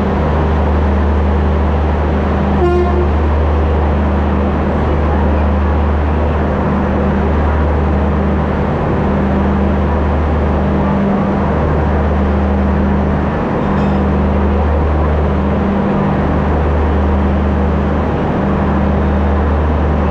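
Diesel locomotive engine idling with a steady low throb that swells and fades every second or two. A short horn toot sounds about three seconds in.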